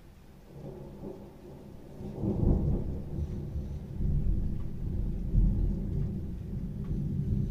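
Rolling thunder: a low rumble that starts building about half a second in, swells sharply about two seconds in, and keeps rolling with several loud peaks.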